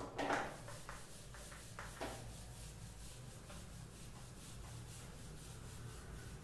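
Whiteboard eraser rubbing across a whiteboard in a run of short, faint back-and-forth wiping strokes, a little stronger in the first couple of seconds.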